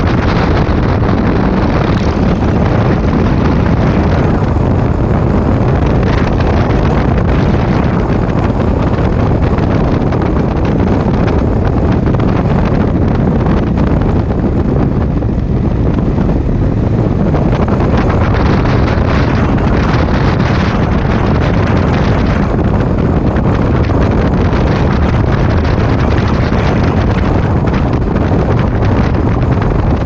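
Loud, steady wind rush buffeting the camera microphone on a motorcycle riding at about 60 km/h, with the bike's running noise underneath.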